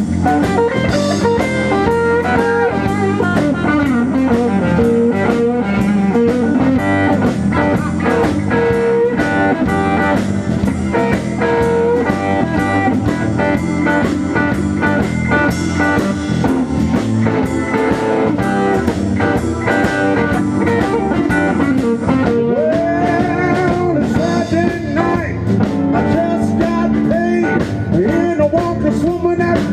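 Live blues band playing a shuffle in G: electric guitar over bass guitar and drum kit, with bending guitar notes over a steady beat.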